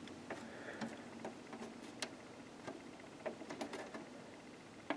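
Faint scattered clicks and rubbing from a plastic SATA data cable connector being worked onto a solid state drive's port, with one sharper click about two seconds in.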